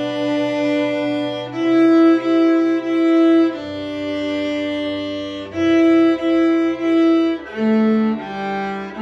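Viola bowed in a simple tune. Long held notes alternate with groups of three short repeated notes, and a lower note sounds beneath.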